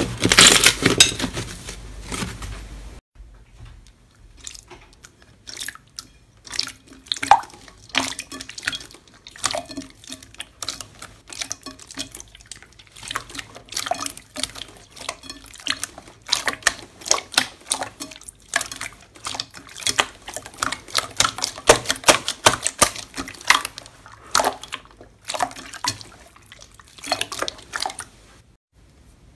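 Glossy slime stretched and pressed by hand in a glass bowl: many short, wet clicks and pops in quick, irregular runs. For about the first three seconds a thicker slime squelches loudly under kneading hands, ending suddenly.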